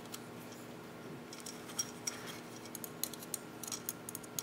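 A long hex key tightening small 6-32 machine screws into an aluminium bracket: faint, irregular metallic clicks and ticks. They come sparsely at first and more often after about a second.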